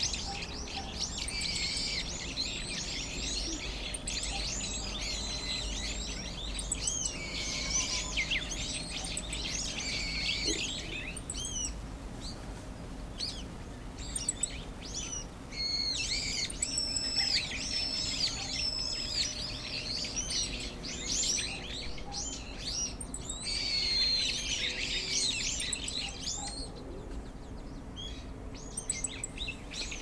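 Many small birds chirping at once: a dense chatter of short high calls that thins out for a few seconds about twelve seconds in and again near the end.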